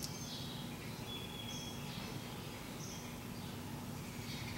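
Quiet shop room tone: a low steady electrical hum with faint, short bird chirps now and then, and a faint click right at the start.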